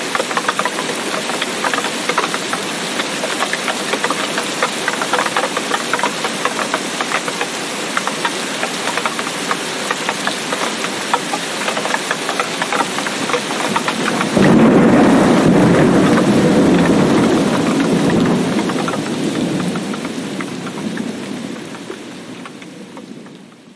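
Steady heavy tropical rain with dense, fine drop impacts. About halfway through, thunder breaks in suddenly with a loud rolling rumble, the loudest part, which slowly dies away as the whole sound fades out near the end.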